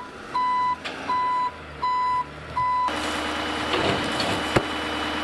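Altec truck's reversing alarm beeping four times, a steady high tone about every three-quarters of a second. The beeping stops about three seconds in and the truck's engine runs on steadily, with one sharp click near the end.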